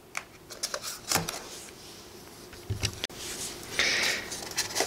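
Hands handling a styrofoam packing tray: a run of small clicks and knocks, then a longer rubbing scrape of foam about four seconds in.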